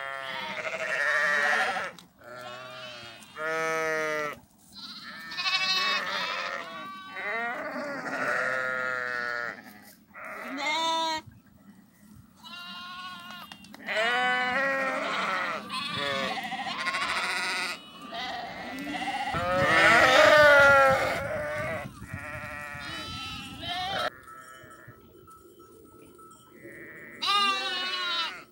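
Flock of sheep and lambs bleating, one call after another with many overlapping; the loudest burst of bleats comes about two-thirds of the way through, followed by a quieter spell before more bleating near the end.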